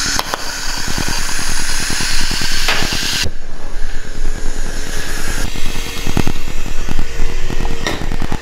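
Electric arc welding of a steel exhaust flange to a muffler pipe: the arc's steady crackle and hiss, changing abruptly twice.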